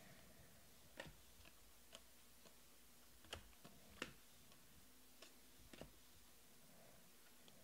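Faint, irregular clicks of glossy Panini Prizm baseball cards being flipped one by one off a stack held in the hand, about ten light snaps spread unevenly, the sharpest a little past three and four seconds in.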